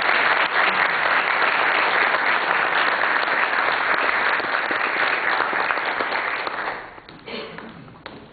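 Audience applauding: dense, steady clapping that dies away about seven seconds in, leaving a few faint taps.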